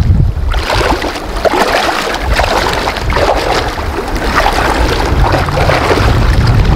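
Feet wading and splashing through a shallow, running river, with irregular sloshing over steady rushing water. A low wind rumble on the microphone grows near the end.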